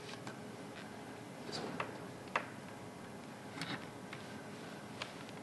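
A multimeter and its test probes being handled: a handful of small, sharp plastic clicks and short bits of clatter spread irregularly, about five in all.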